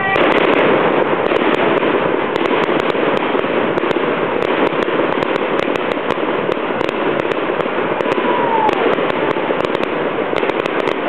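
Fireworks going off in quick succession: a loud, continuous dense crackle studded with many sharp cracks.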